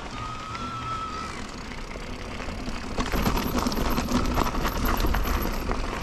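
Electric mountain bike riding on a rough trail: a thin motor whine in the first second and a half, then from about three seconds in louder tyre noise with a rattling clatter of many small knocks.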